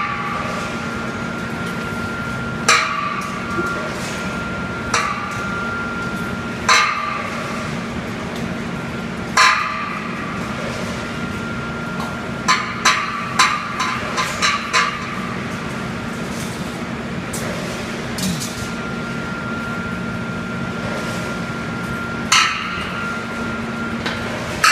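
Automatic wire mesh welding machine running with a steady hum, punctuated by loud, ringing metallic clanks every two to three seconds, with a quick run of about six clanks about halfway through.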